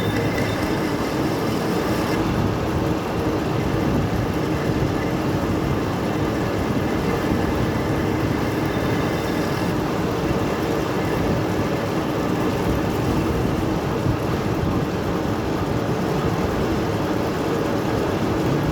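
Metal lathe running with a steady, even mechanical rumble and no sudden knocks.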